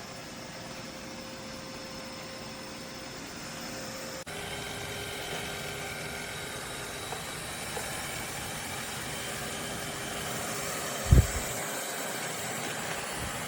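Robot vacuum running with a steady motor hum and whine of fixed tones. The tones change abruptly about four seconds in, and a single loud thump comes near the end.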